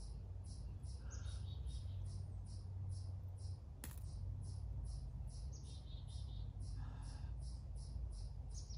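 Even, high-pitched chirping repeating about two to three times a second over a low steady rumble, with one sharp click about four seconds in.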